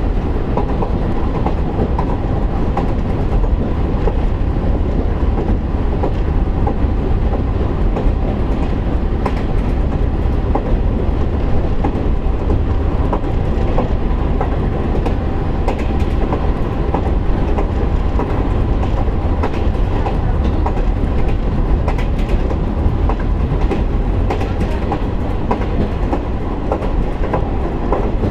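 Interior running sound of a JR KiHa 147 diesel railcar cruising, heard from inside the passenger cabin: a steady rumble of diesel engine and wheels on rail with a faint hum. Scattered clicks of the wheels passing over rail joints.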